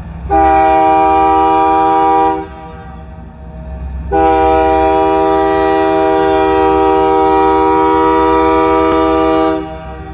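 Union Pacific freight locomotive's air horn sounding a multi-note chord in two blasts: about two seconds, then after a short gap a long one of about five seconds. A steady low rumble lies underneath.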